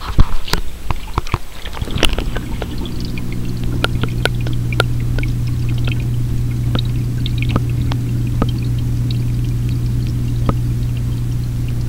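Aquarium pump setting in about two seconds in with a steady low hum and a wash of water noise. Sharp clicks and knocks come before it, and a few scattered ticks follow.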